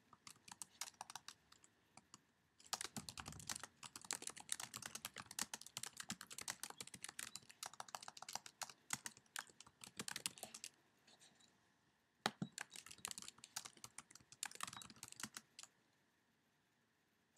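Fast typing on a computer keyboard: quick runs of key clicks, broken twice by pauses of a second or so, stopping about two seconds before the end.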